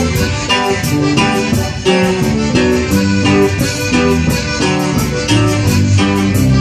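Live band playing an instrumental passage with a steady beat and no singing.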